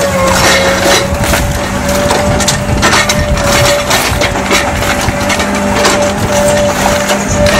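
Excavator-mounted hydraulic demolition shear crushing and breaking brick and concrete rubble: irregular sharp cracks and crunches over the steady drone of the excavator, with a constant machine hum held throughout.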